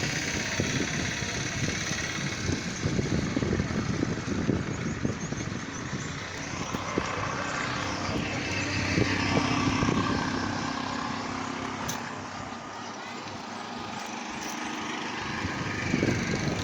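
Road traffic passing by, with one vehicle's engine growing louder about nine seconds in and then fading away.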